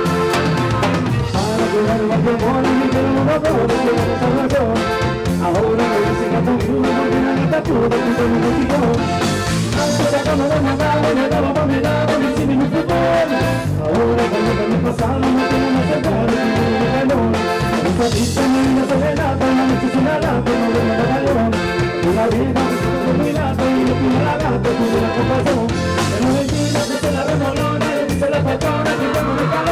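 A live grupero band playing an upbeat dance number, with drum kit, electric bass and accordion over a steady beat.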